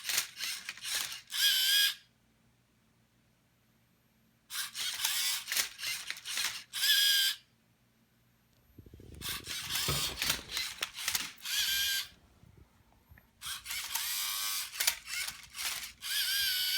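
Small electric motors of a Rubik's cube solving robot whirring in four short runs as they turn the cube's faces, with pauses of a second or two between them. The motors are weak and the cube is close to jamming.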